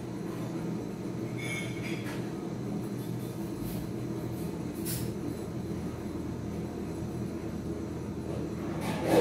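Gas torch flame burning steadily against a traditional popcorn pot as it is turned, a continuous even rushing noise with a few faint clicks, swelling louder near the end.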